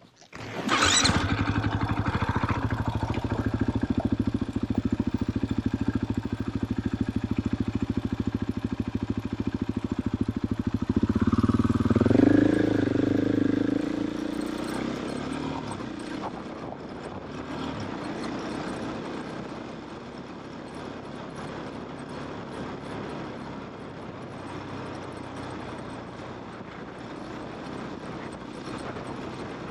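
KTM motorcycle engine running steadily, then revving up about twelve seconds in before its sound drops away to a quieter, even rumble.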